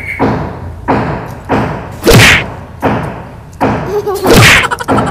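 Steady pounding from manual work: heavy thuds about every two-thirds of a second, each with a short ring, with two louder, sharper strikes about two seconds and four seconds in.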